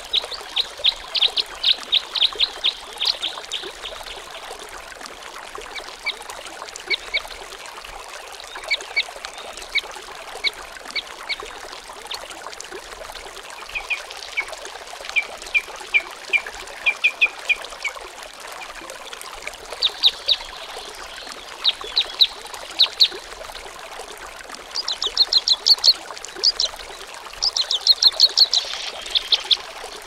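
Waterfall and river rapids rushing in a steady hiss, with birds calling over it in runs of quick, high chirps that come back every few seconds.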